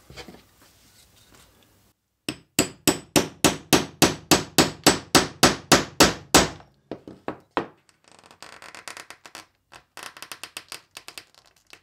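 A hammer strikes a steel punch held upright on layered leather, about twenty quick blows at four or five a second, driving it through every layer and into the wooden workbench. A few lighter taps follow, then fainter clicking and scraping near the end.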